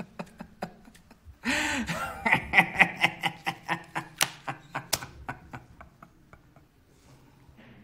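A man laughing: a few short chuckles, then, about a second and a half in, a loud run of rapid 'ha-ha-ha' laughter that dies away near six seconds.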